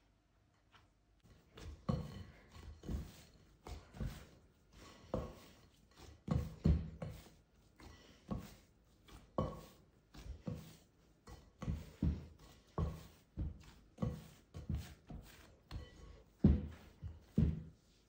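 Wheat bread dough kneaded by hand in a glass bowl: a run of soft thuds and squelches, about one or two a second, as the fist presses and turns the dough against the bowl. The run starts about a second and a half in.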